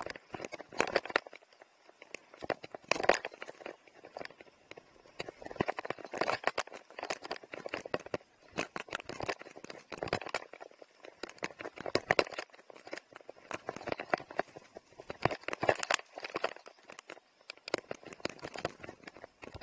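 Mountain bike riding over a dry, bumpy dirt trail, rattling and clattering in irregular clusters of sharp clicks and knocks as it rolls over bumps.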